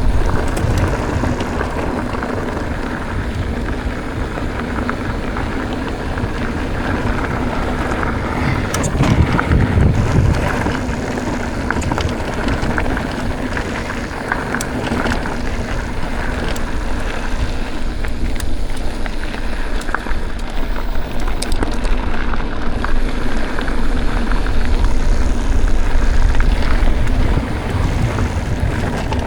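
Riding noise from a mountain bike on a dirt trail: wind buffeting the microphone over tyres rolling on loose ground, with scattered clicks and rattles from the bike.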